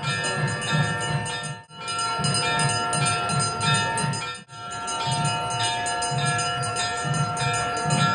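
Bells ringing in long, sustained tones over a pulsing low beat. The sound drops out abruptly for an instant twice.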